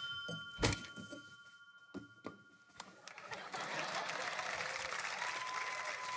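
Electronic doorbell chime ringing on steady tones, with a sharp door thunk about a second in. The chime cuts off after about three seconds. A steady wash of noise with a held whistle in it then takes over.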